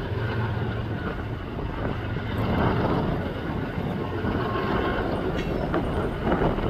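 Freight train rolling past, a steady rumble of wheels on rail with a few sharp clicks in the second half.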